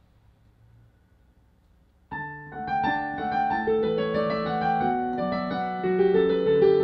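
Digital piano played with both hands, starting about two seconds in after near silence, with several notes sounding at once.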